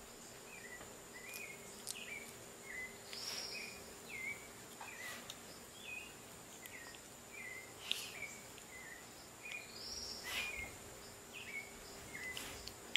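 Faint outdoor ambience: short high chirps repeating about twice a second over a steady high insect-like drone, with two louder, longer calls about seven seconds apart.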